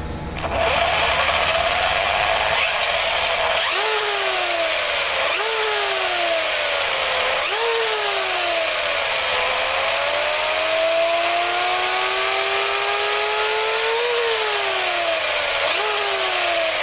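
Slash 4x4 RC truck's electric motor and gear drivetrain running with a loud, chatty whine over a steady hiss. The pitch climbs and falls several times as the throttle is worked, with one longer, slower climb in the middle. It is typical of the truck, whose diffs, pinion, spur gear and bearings are in good condition; the owner calls it running smoothly but noisy.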